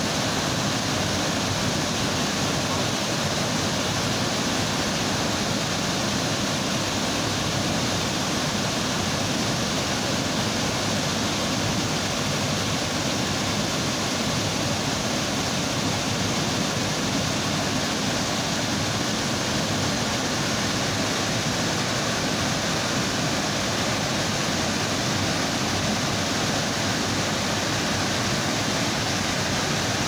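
Large waterfall pouring into its plunge pool: a steady, even rush of falling water.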